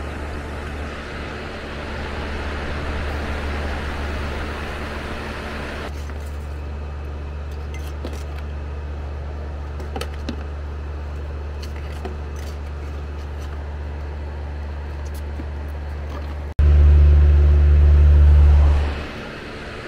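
A steady low machine hum, with nitrogen hissing through the gauge hoses into the condenser's refrigerant circuit as it is pressurized for a leak test; the hiss cuts off about six seconds in. Near the end a much louder low hum comes in suddenly for about two seconds, then fades.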